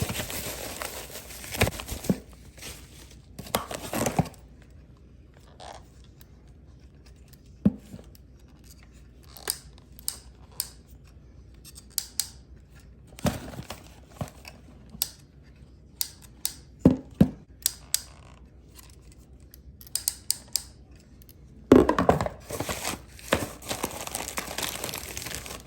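Packaging of a new shower head being opened and handled: tearing and crinkling in a few longer stretches, with scattered sharp clicks and knocks in between.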